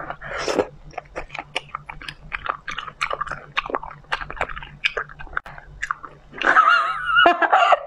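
Close-miked crunchy chewing of a tough piece of raw seafood: a quick, irregular run of crisp clicks. Near the end, a short hummed vocal sound with a wavering pitch.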